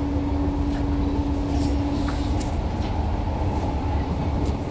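SMRT C151A metro train running, heard from inside the car: a steady low rumble of wheels on track with a constant tone that fades out about halfway through, and a few faint clicks.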